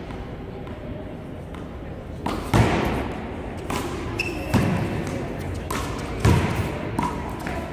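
One-wall handball rally: a rubber ball slapped by hand, hitting the front wall and bouncing on the court, a string of sharp smacks that echo in a large hall. The loudest smacks come about every two seconds, with lighter bounces between.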